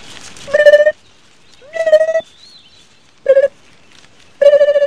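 Four short, high-pitched nonsense calls from cartoon unicorn voices, each well under half a second and spaced about a second apart.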